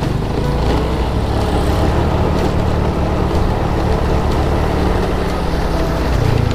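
Motorcycle engine running while riding up a slope, with wind rushing over the microphone; the engine note swells near the end.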